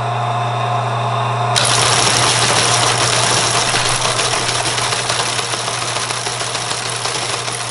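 Teletype printer and Model 14 tape transmitter-distributor: a steady motor hum, then about a second and a half in a dense, fast mechanical clatter starts suddenly and keeps going as tape is read and characters are typed. The machine is transmitting but printing gibberish.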